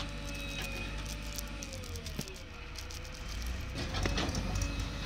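JCB 3DX backhoe loader's diesel engine running under load as the backhoe bucket digs into soil. A tone in the sound sags in pitch about two seconds in, and there are several sharp knocks near the end.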